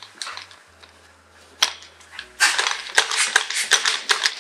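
Tactical belt gear, a kydex grenade-launcher holster and magazine pouches, clattering and clicking as the wearer moves about. A single click comes about a second and a half in, then a dense, fast rattle of clicks from about two seconds in.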